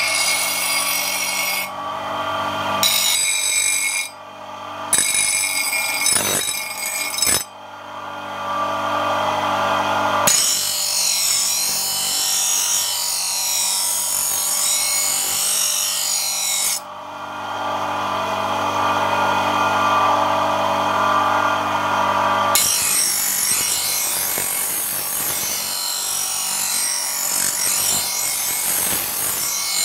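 Spinning grinding wheel with a steady motor hum, a steel knife blade held against it and ground with a hiss. The sound changes abruptly several times.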